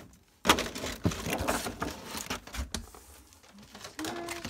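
Rustling and clattering of plastic craft packaging and a plastic container being handled in a cardboard box, starting with a sharp knock about half a second in, then quieter handling.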